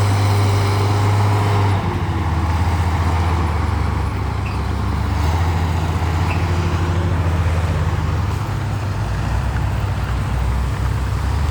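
Heavy diesel engine of earthmoving machinery running, a loud low drone that shifts in pitch a few times.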